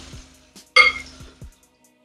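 A plate clinking against a wok as chicken is tipped into hot oil: a short knock at the start and a sharper clink that rings briefly about three-quarters of a second in, over background music.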